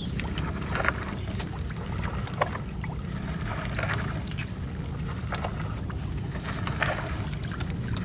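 Steady low rumble of a wooden outrigger fishing boat on the water, with a few light knocks and clicks.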